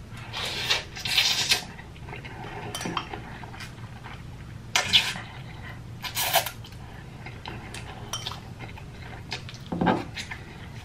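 Instant noodles being slurped and chewed close to the microphone, with chopsticks clinking on the bowl. There are four short slurps, two in the first couple of seconds and two around the middle, and a short vocal sound near the end.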